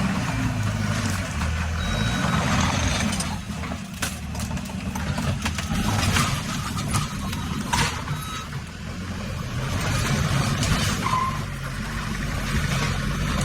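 Skid steer loader's engine running with a heavy low rumble, with scattered sharp knocks and clanks.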